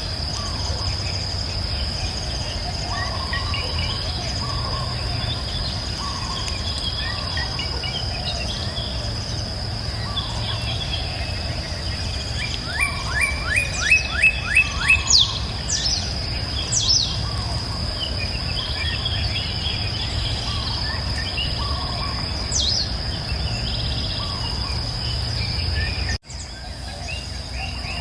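Woodland birds chirping and calling over a steady high-pitched insect drone and a low rumble. About halfway through, one bird sings a run of about seven loud, quick rising notes. The whole sound drops out briefly near the end.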